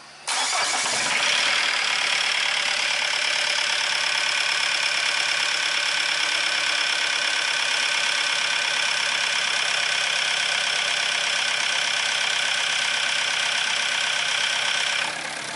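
Diesel engine with a rotary injection pump starting about a third of a second in, then running steadily at idle. It is being test-run after the pump's timing was adjusted to cure a harsh, annoying engine noise. The level drops slightly just before the end.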